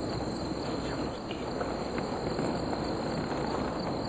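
Crickets chirping in a steady high-pitched pulse, about three chirps a second, over low rustling and faint ticks of hands working a catfish out of a net.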